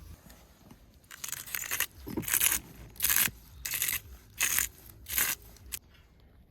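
A run of about six rough scraping strokes, roughly one every three-quarters of a second, ending in a short click.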